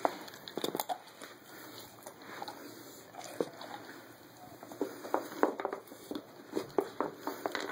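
A dog working a wooden 'Dog Fighter' treat puzzle with its nose and paw, wooden pegs and pieces knocking and clicking irregularly, with a few sharper knocks.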